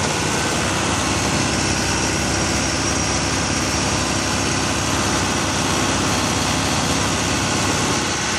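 Case 2140 tractor running steadily under load while powering a vine sweeper's spinning brushes and a Taarup mulcher.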